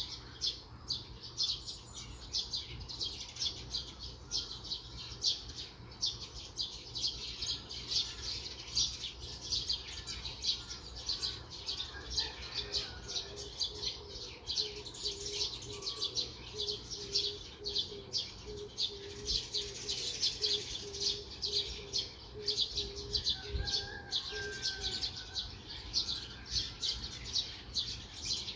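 A chorus of small birds chirping rapidly and continuously in high, short notes. Through the middle, a low note repeats steadily about twice a second alongside them.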